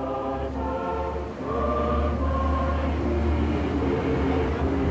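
A choir singing slow, held chords, swelling about a second and a half in, over a steady low hum.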